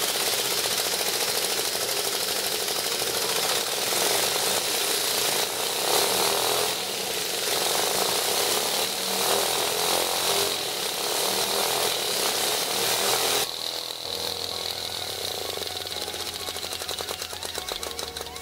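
A butane jet-torch lighter hissing steadily as its flame is held to the cylinder of a small flame-eater (vacuum) engine; the hiss stops about 13 seconds in, leaving the engine's fast, even mechanical ticking over a low hum.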